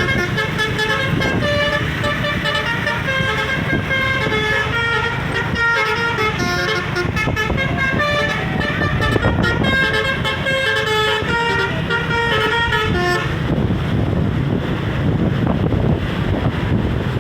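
Indonesian 'om telolet' multi-tone bus horn, a Basuri V3, playing a quick melody of changing notes for about thirteen seconds, then cutting off and leaving a low steady rumble.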